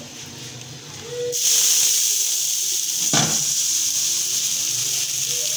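Tap water hitting a hot iron griddle (tava) in a steel sink, hissing into steam as it starts suddenly about a second in, with a single knock a couple of seconds later.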